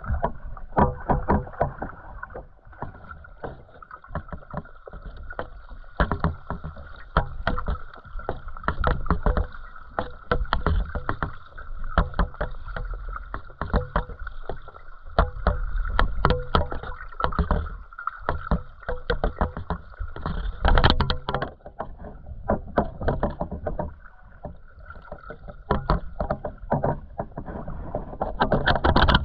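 Muffled underwater sound through a GoPro's waterproof housing: water rumbling and sloshing with frequent irregular knocks and clicks, a loud cluster of them about 21 seconds in.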